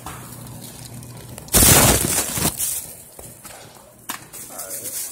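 A loud burst of rustling close to the microphone, starting about a second and a half in and lasting about a second, over a steady low hum.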